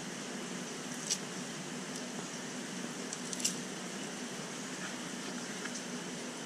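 Steady hiss and low hum of a large aquarium's water and equipment, picked up by a camera held underwater, with two faint clicks about a second and three and a half seconds in.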